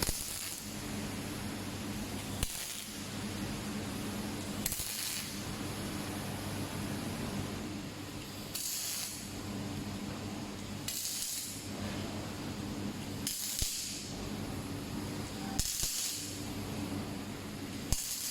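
A robotic arc-welding torch welding in short bursts, a crackling hiss about every two seconds, over a steady low machine hum.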